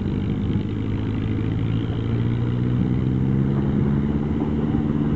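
An engine idling steadily, a low even hum that holds one pitch throughout.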